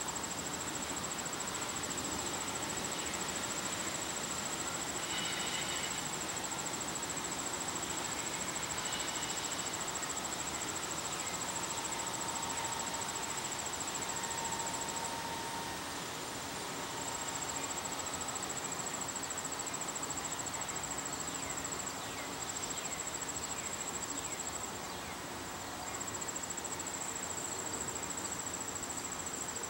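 Insects trilling in a steady, high-pitched, finely pulsed drone that breaks off briefly twice.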